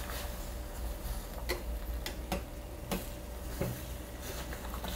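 Metal tongs clicking against a stainless steel saucepan as spinach and bangpung greens are pushed down into boiling water for blanching: light, irregular clicks, one or two a second, over a steady low hum.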